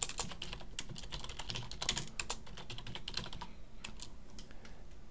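Computer keyboard typing: a fast, irregular run of keystrokes with a brief pause about three and a half seconds in.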